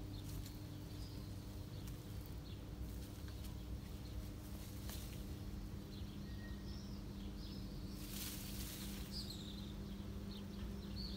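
Outdoor ambience: small birds chirping in short, repeated notes over a steady low hum, with a brief hiss about eight seconds in.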